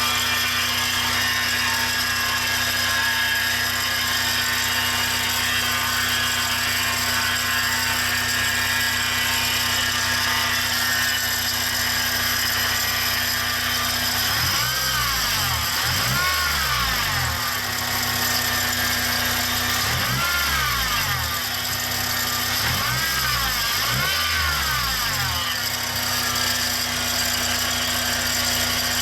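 Honda Mobilio Spike engine running with a steady, motor-like whine from the accessory belt's idler pulley below the alternator, the worn pulley that is the cause of the noise. About halfway through, the pitch sweeps up and back down several times.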